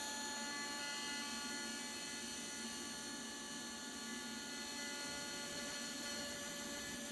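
TIG welding arc burning steadily on stainless steel sheet while filler rod is fed in: a continuous even hiss with a thin high whine, laying a weave bead.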